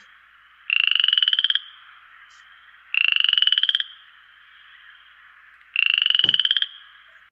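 A frog croaking: three long calls about two seconds apart, each a rapid train of pulses lasting about a second and rising slightly in pitch.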